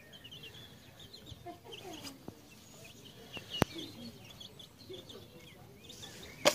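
Young chickens peeping, many short high cheeps repeating throughout. A single sharp click about three and a half seconds in.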